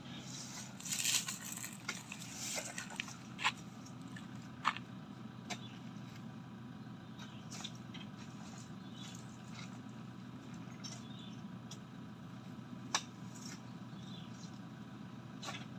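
Steady low hum of a Toyota Hilux pickup's engine idling, with scattered sharp knocks and clicks as oil palm fruit bunches are handled with a hooked pole. The loudest knocks come about two-thirds of the way in and near the end.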